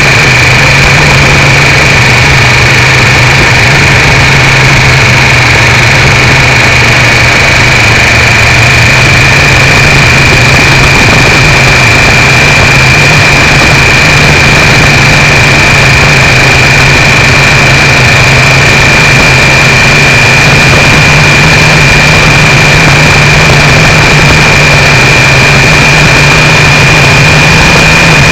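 Triumph 955i three-cylinder motorcycle engine running at a steady cruise, its pitch edging up slightly later on. It is buried in a constant roar of noise and distortion from a cheap keyfob camera strapped to the foglight, with a steady high-pitched whine over it.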